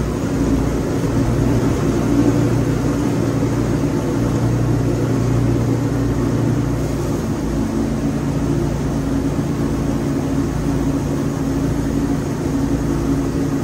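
Wood-Mizer LT40 band sawmill running steadily under load as its band blade cuts through a hardwood log; the engine's hum steps up slightly in pitch about halfway through.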